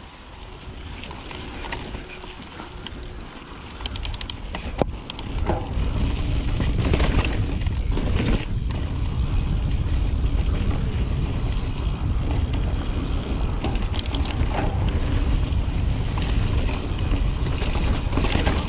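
Mountain bike descending a rocky dirt trail: tyres rolling over dirt and rock, the bike rattling and knocking over bumps, and wind rushing on the microphone. The wind rumble grows loud about five seconds in as the bike picks up speed.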